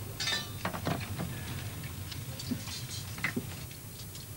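Pieces of silver tableware clinking and knocking as they are handled and set down, in a few irregular sharp clicks, over a steady low hum.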